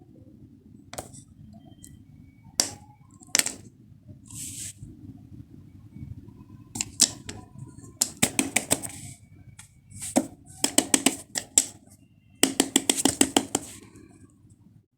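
Fidget toys being handled: scattered single clicks and taps, then three quick runs of sharp clicks in the second half, over a faint low hum.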